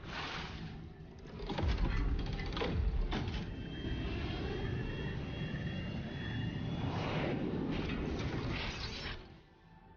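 Produced sound effects for a TV title sequence: a deep jet-engine rumble with a steady high whine in the middle, heavy hits about one and a half and three seconds in, and whooshes near the start and towards the end, fading out in the last second.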